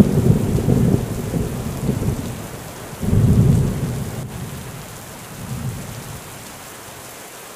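Thunder rumbling over steady rain. A fresh rumble swells about three seconds in, then fades away, leaving only the hiss of the rain.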